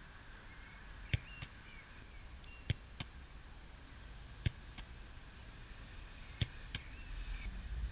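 A football being struck and then caught in goalkeeper gloves, over and over: sharp thuds that mostly come in pairs about a third of a second apart, three pairs and one single thud.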